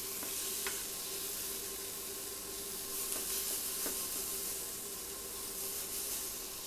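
Diced root vegetables and bacon frying in oil in a pan, a steady sizzle, with a few light clicks as they are stirred. A faint steady hum runs beneath.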